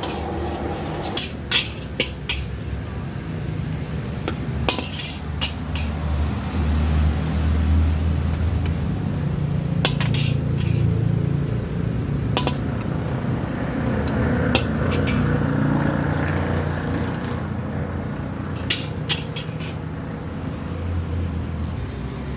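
A metal spatula clanking against a wok during stir-frying, with sharp strikes coming at irregular intervals, some in quick pairs. Under them runs a steady low rumble.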